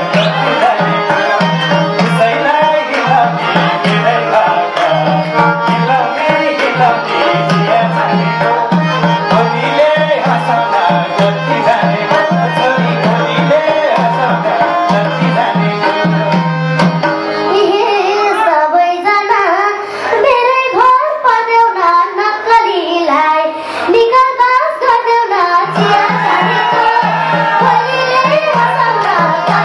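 Live Nepali folk song played loud through a PA: singing over a hand-drum rhythm and a steady bass line. The bass and drums drop out for several seconds past the middle, leaving the voice more exposed, then come back in.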